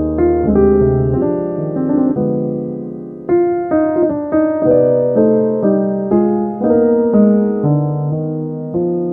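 Slow piano music: notes and chords struck roughly every half second to a second, each left to ring and fade.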